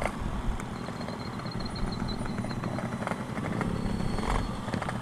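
Yamaha RX-King two-stroke motorcycle engine running steadily at full throttle in top gear. The engine is out of breath: it is at the top of its revs and pulls no further.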